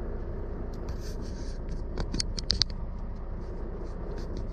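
Steady low hum of an idling truck, with a run of light scrapes and sharp clicks between about one and three seconds in.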